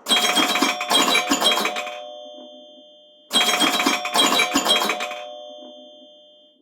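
A ringtone from an Apple iPad, playing twice: a quick run of bright notes for about two seconds, then a few held tones that ring on and fade.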